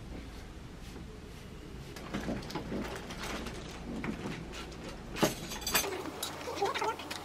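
Low room hum with soft handling sounds, then a sharp clink of a metal spoon against the bowl and tray about five seconds in. The hum cuts off just after.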